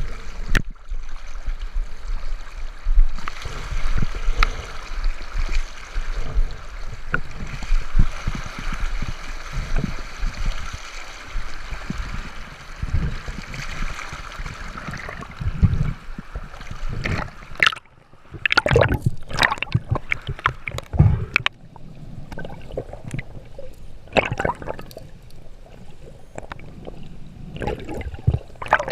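Fast, shallow river rapid heard with the microphone in the water: a steady rush and gurgle of current. From about halfway through it breaks into separate bursts of bubbling and splashing.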